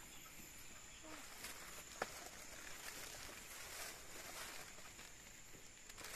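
Faint outdoor garden ambience with a steady high-pitched insect drone and one sharp click about two seconds in.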